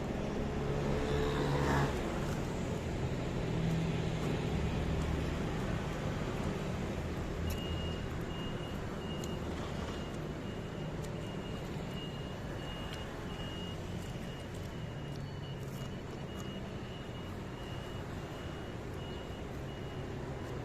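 Steady rumble of road traffic, louder in the first two seconds. From about a third of the way in, a faint high beep repeats about twice a second.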